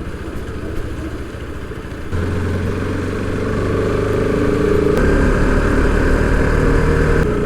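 Motorcycle engine running as the bike is ridden, pulling harder and getting louder about two seconds in and again about five seconds in.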